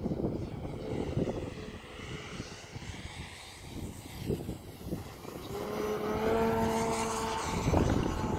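Propeller and electric motor of a radio-controlled Extra 300 aerobatic model plane in flight: a 22x10 prop on an XPWR 40cc electric motor whirring in the air. About two-thirds of the way in, a steady humming tone comes in and the sound grows louder before easing near the end. Wind rumbles on the microphone throughout.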